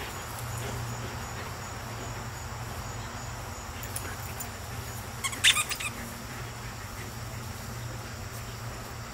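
Steady chirring of insects, crickets or katydids, over a low hum. About five and a half seconds in comes a quick cluster of sharp clicks, the loudest sound here.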